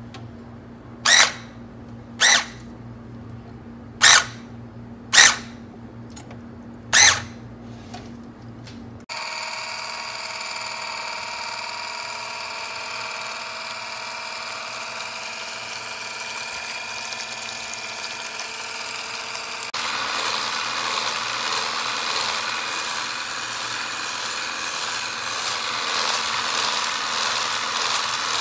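Electric hand mixer starting abruptly about nine seconds in and running with a steady whine as its beaters whip fresh cream, milk and sugar into foam. It turns louder and harsher about twenty seconds in. Before it starts come several short, sharp, loud sounds.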